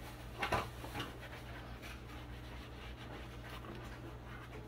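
Quiet kitchen room tone with a low steady hum, and two soft knocks about half a second and a second in.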